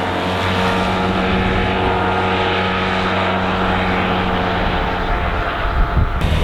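Yamaha TMAX 530 SX's parallel-twin engine running at a steady pitch. Just before the end the even tone breaks off and a rougher, lower rumble takes over.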